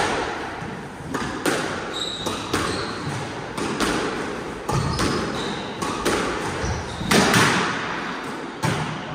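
Squash ball and rackets in a rally: sharp cracks of racket hits and the ball striking the court walls, roughly one every half second to second, each ringing briefly off the hard walls. A few short high squeaks, typical of shoes on a wooden court floor.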